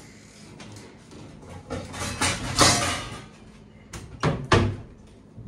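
Kitchen clatter: a short stretch of rustling noise about two seconds in, then three quick, sharp knocks about four seconds in.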